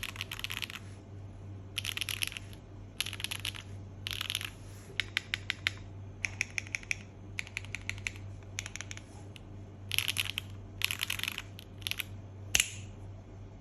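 Enter67 mechanical keyboard being typed on in quick bursts of key presses with short pauses between them, and one single, louder key press near the end. A steady low hum runs underneath.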